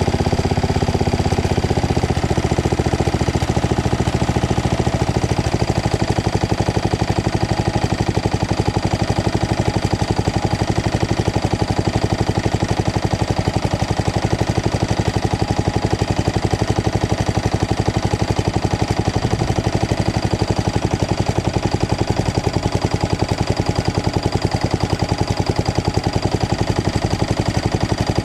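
Craftsman LT2000 lawn tractor's Briggs & Stratton engine running steadily with an even, fast firing pulse, now that its valves have been adjusted and its starter replaced. Its note shifts slightly about two seconds in, then holds steady.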